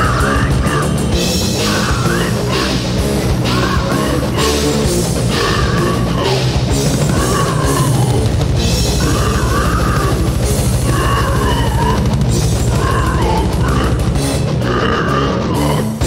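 Death metal with distorted guitars and drums, fronted by an African grey parrot whose short squawks serve as the vocals and recur about once a second over the band.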